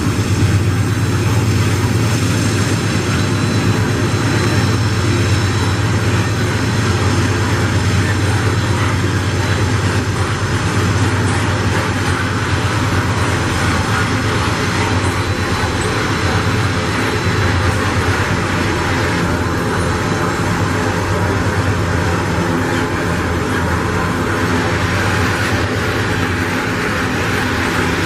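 Iron-ore freight train passing: the steady low drone of GE AC44i diesel-electric locomotives over the running noise of ore gondola wagons rolling on the rails. The wheel and rail noise grows brighter about two-thirds of the way in.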